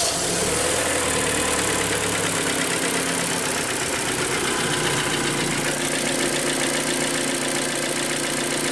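Kia Sportage 3's 2.0 G4KD four-cylinder petrol engine idling just after a cold start, with a ringing, rattling knock. The knock is the sign of scuffed pistons and scored cylinder walls.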